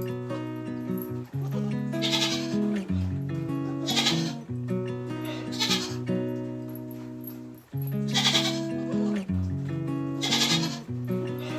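Background music: a melody in sustained pitched notes with a regular accent about every two seconds.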